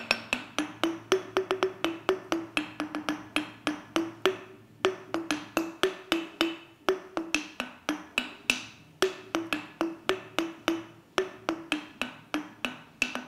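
Rintol, a homemade bottle version of the Balinese rindik: brown glass bottles of different sizes struck quickly with a beater, each bottle ringing a different note. They play a fast melodic pattern of about four to five strikes a second, in short phrases with brief pauses.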